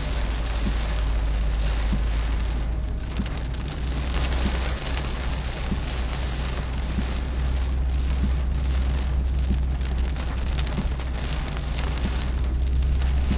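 Rain on a moving car, heard inside the cabin through a dashcam's microphone: an even hiss of rain with scattered drop ticks over the car's steady low driving drone.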